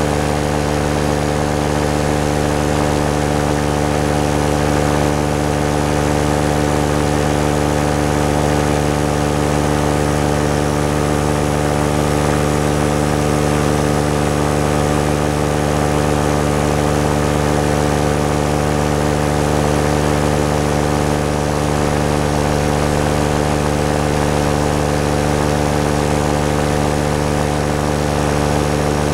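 Paramotor engine and propeller running at a steady, unchanging throttle in flight, a constant loud drone with a high noise of air over it.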